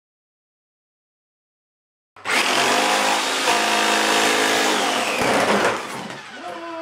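About two seconds of silence, then a corded Black & Decker jigsaw starts and cuts through a thin fibreboard sheet with a loud, steady motor whine and blade rasp. Near the end the motor winds down, its pitch falling.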